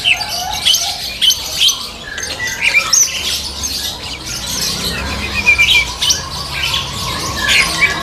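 Several caged songbirds chirping and whistling, in many short, sharp, overlapping calls, with a brief rapid trill about halfway through.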